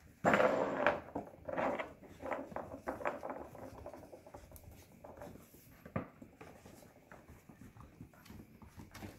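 Mini goldendoodle puppies playing, their paws and claws tapping and scuffling on a hardwood floor as they tug at a towel; a louder burst of noise fills the first second, then irregular small taps, with one sharper click about six seconds in.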